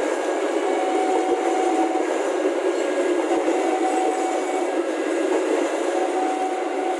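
Passenger train coaches rolling past close by: a steady, loud noise of steel wheels running on the rails. A faint two-note tone repeats above it every couple of seconds.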